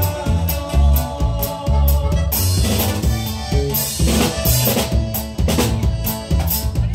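Instrumental passage of live music: electric bass over a drum beat with steady hi-hat strokes, and cymbal washes a little over two seconds in and again about four seconds in.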